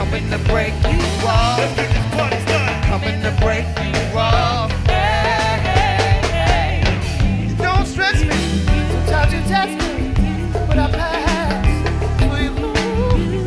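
Live go-go band music with a steady, dense drum and percussion beat under a wavering melody line.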